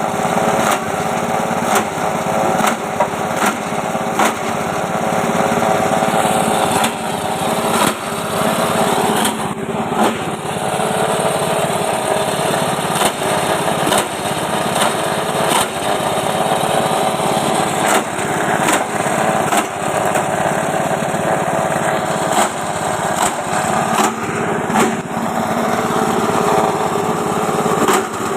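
JG-135 multi-function chopper machine running steadily at speed, with irregular short knocks and clatter over the running sound.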